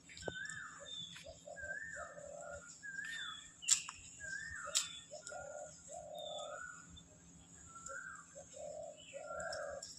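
Baby Alexandrine parakeet calling: short rising-then-falling calls about once a second, with lower stuttering notes in between. Two sharp clicks near the middle are the loudest sounds.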